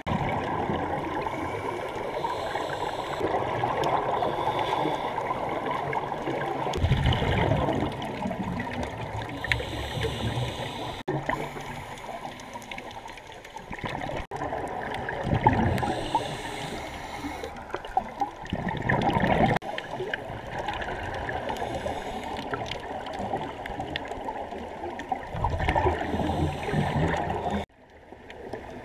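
Underwater audio of scuba divers' regulator exhaust bubbles gurgling and rushing, muffled through the camera housing, with louder surges of bubbles every few seconds.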